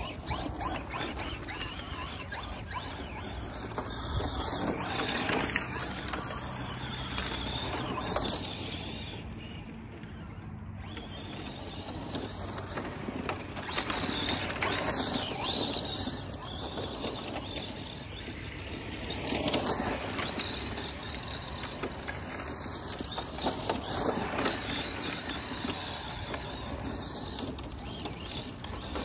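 ARRMA Mojave 4S electric RC desert truck driving and drifting on loose dirt: motor and tyres scrabbling on the ground, getting louder and softer several times as the truck comes near and goes away.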